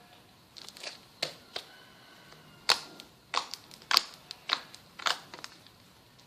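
Slime being squeezed and pressed, giving an irregular string of sharp pops and clicks from trapped air, about a dozen in all, starting about half a second in.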